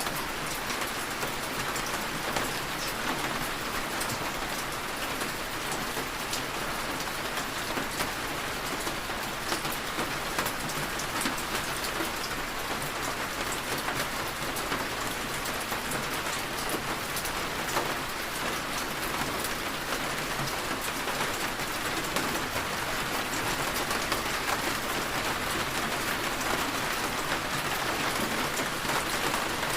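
Steady rainfall, many small drops tapping in a dense, even stream.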